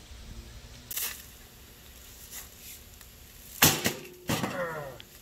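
Axe blows on a Breadman bread maker's plastic housing: a small knock about a second in, then two sharp hard hits near the end, the second followed by a brief ringing rattle of loosened parts.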